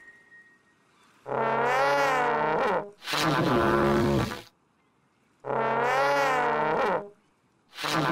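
Comical brass horn toots: four wobbly, wavering blasts of about a second and a half each, in two pairs, the first starting about a second in.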